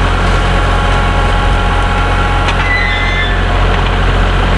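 Kubota tractor's diesel engine running steadily with a deep, even hum.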